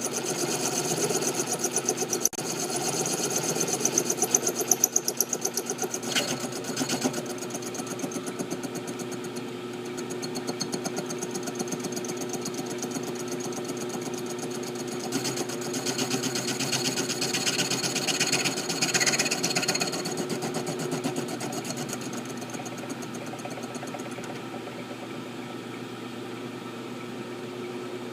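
A machine tool, most likely a milling machine, running steadily as it cuts slots into a steel M1911 pistol slide, with a fast, even ticking texture over a steady hum. It is louder in the first several seconds and again for a few seconds past the middle, easing off toward the end.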